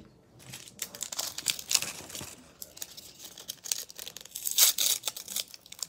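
A small plastic wrapper being torn open and crinkled in the hands, in bursts of crackling, loudest a little before the end.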